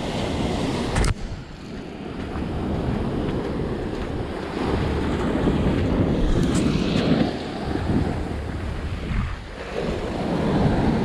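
North Sea waves breaking and washing up a sand and shingle beach, surging louder midway and again near the end, with wind buffeting the microphone.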